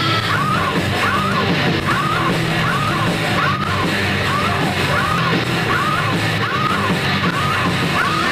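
Live rock band playing loudly, with a short high riff repeating about every two-thirds of a second over a steady low band sound.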